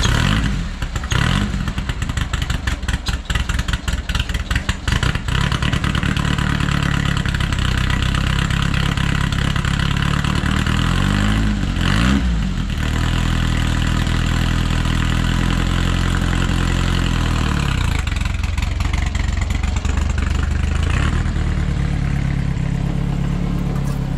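Air-cooled VW Beetle flat-four engine running at idle, revved up and back down a couple of times about eleven seconds in.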